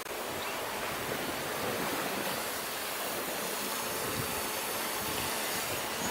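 Steady rush of wind and sea water around a sailboat under way, an even noise with no distinct events.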